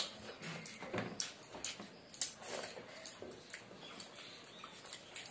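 Close-up wet chewing and lip-smacking of people eating chicken curry and rice by hand, in irregular clicks and smacks a couple of times a second.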